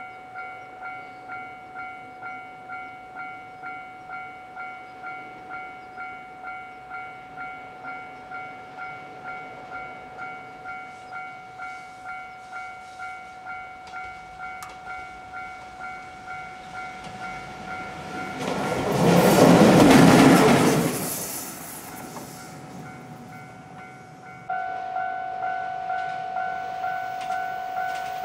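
Japanese railway level-crossing bell ringing with a steady ding-ding, about two strikes a second. About two-thirds of the way in, a lone EF67 electric locomotive passes with a loud swell of noise that rises and fades. The bell then stops briefly and starts again at a slightly lower pitch.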